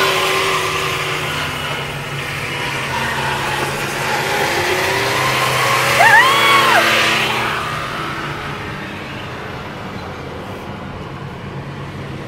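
Can-Am side-by-side UTV engine running as it drives along the road, the sound dying down in the second half as it pulls away.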